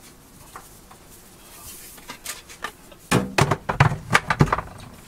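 Kitchen handling noise: a quick run of knocks and clatters about three seconds in, lasting about a second and a half, as a seasoning container and other kitchen items are handled and put down.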